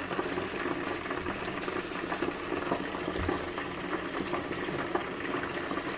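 Steady bubbling, crackling hiss of food cooking on the stove, with a few faint light clicks.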